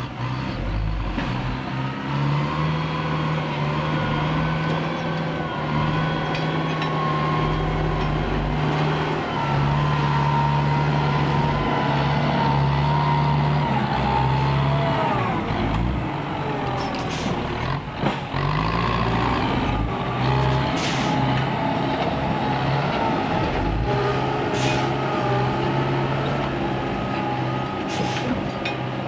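Ten-wheel dump truck's diesel engine running steadily under load with a low drone and a wavering whine, its tipper bed raised for dumping. A brief knock and dip in the sound about two-thirds of the way through.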